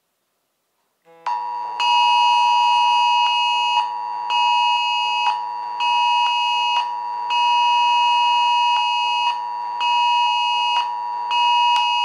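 Two smartphones sounding the emergency alert attention tone together, starting about a second in: one steady loud tone held throughout, and over it a second, higher alarm tone in a repeating pattern of one long blast and two short ones, with a low buzz pulsing in the same pattern. This is a cell-broadcast severe alert being received, here the UK national emergency alert test.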